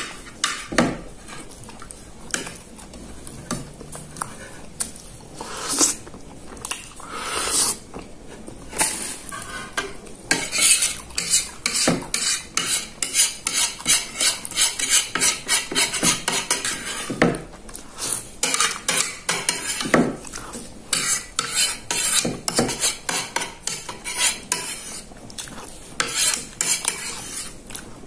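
Metal spoon scraping and clinking against a ceramic plate, gathering up the last of the satay sauce. Sparse taps and scrapes at first, then a rapid run of short scrapes from about a third of the way in, with a brief pause past the middle.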